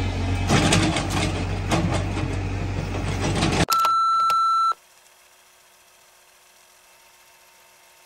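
Excavator engine running with a steady low hum while its bucket scrapes and knocks through broken asphalt and soil. It cuts off abruptly about four seconds in, and a steady high electronic beep follows for about a second.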